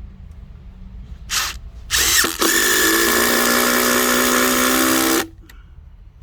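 Ryobi RID18X brushless impact driver driving a screw into a hardwood sleeper: a short burst, a second brief start, then about three seconds of steady running before it stops abruptly.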